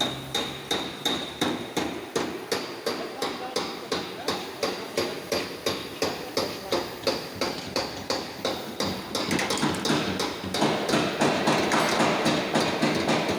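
Hammer blows on a car's sheet-metal body panel as it is beaten back into shape, struck steadily about three times a second. About nine seconds in, the blows become denser and louder.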